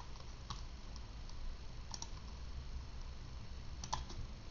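A few sharp computer mouse clicks, about three spread over four seconds, over a faint steady low hum.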